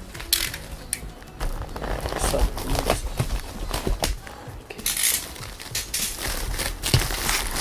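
Packaging rustling and crinkling in an uneven run of scrapes and crackles as it is pulled and worked open by hand.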